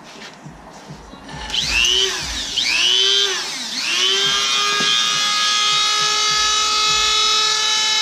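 Dremel rotary tool switching on about a second and a half in, its motor whine rising and dipping a few times before settling into a steady high-pitched whine, as it is set to grinding down the ends of a motorcycle chain pin.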